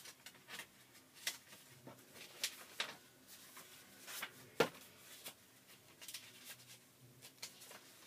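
Paper leaflets and booklets being handled and leafed through: irregular rustles and crinkles, with one sharper snap about four and a half seconds in.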